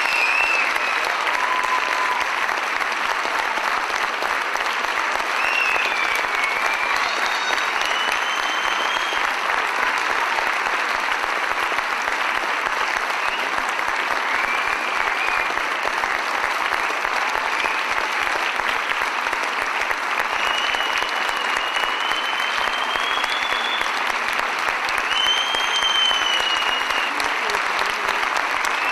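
Audience applauding steadily and without a break, with a few high whistles rising and falling over the clapping.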